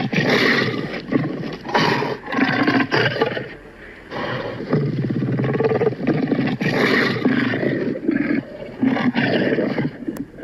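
Film sound effect of a Tyrannosaurus-like dinosaur monster roaring and growling: a run of loud, rough, rasping roars, one after another, easing briefly about four seconds in before building again.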